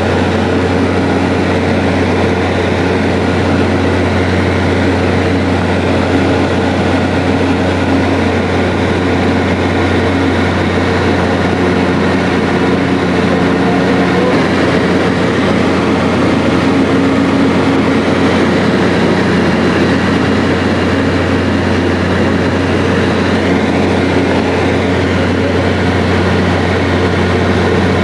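Steady drone of a small high-wing propeller plane's engine and propeller, heard from inside the cabin.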